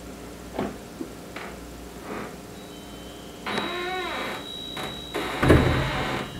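A front door being handled and shut: a few light clicks early on, a drawn-out creak about three and a half seconds in, and a heavy thud from the door near the end, the loudest sound. Over this the small metal tubes of a door-hung wind chime ring with a steady high tone.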